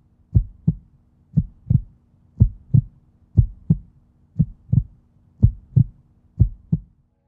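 Heartbeat sound effect: a steady double-thump beat, lub-dub about once a second, over a faint low drone.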